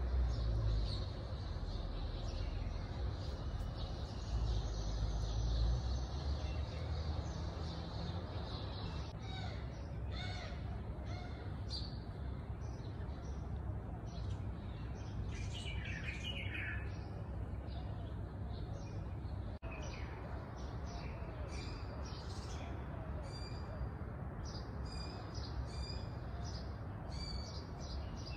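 Small birds chirping and calling, many short high chirps that come thicker from about a third of the way in, over a steady low background rumble.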